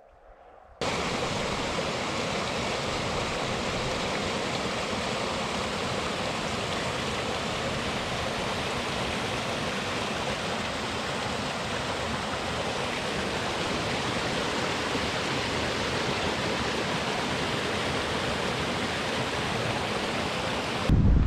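Rocky mountain stream rushing over boulders in small cascades: a steady, even rush of water that starts abruptly about a second in and cuts off just before the end.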